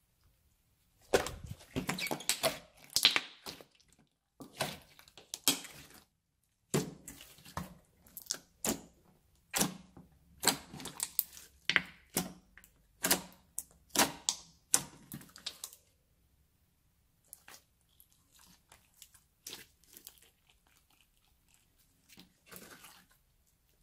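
Glossy slime squeezed, folded and stretched by hand, giving a quick run of wet pops, squelches and clicks as trapped air bursts. The sounds start about a second in and thin to a few fainter clicks in the last third.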